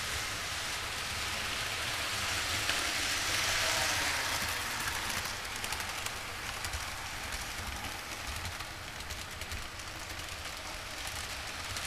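Model freight train headed by two SD60M diesel models running along the layout's metal track: a steady whirring rush of wheels and motors that swells about three to four seconds in as the train passes close, then a run of faint clicks from the rail joints.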